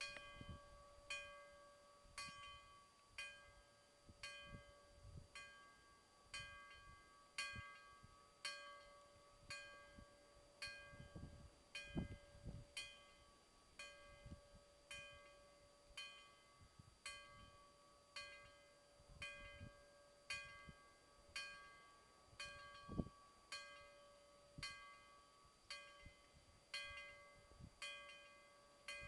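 Level-crossing warning bell striking about once a second, each stroke ringing out briefly over a faint steady tone, signalling that the crossing is closed for an approaching train. A few low thumps come in between.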